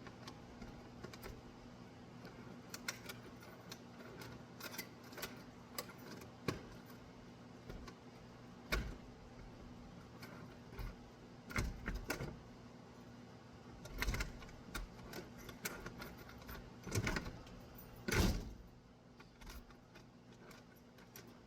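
Keys jangling and a key being worked in a newly fitted storm door lock, locking and unlocking it, with scattered metallic clicks and clacks, a few louder ones in the second half. A faint steady hum sits underneath.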